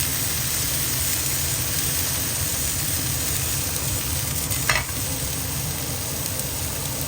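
Rice frying in a wok with kimchi, a steady sizzle as it is stirred, with one short scrape or knock about two-thirds of the way in.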